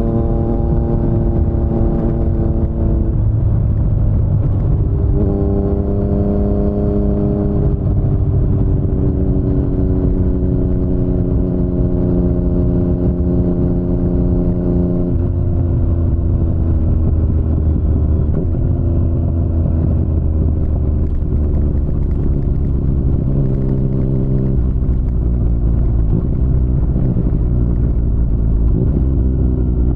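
2019 Yamaha MT-09's inline three-cylinder engine through an Akrapovic full-system exhaust, ridden on the road. The engine note holds steady for a few seconds at a time, then steps up or down in pitch several times as the throttle and gears change.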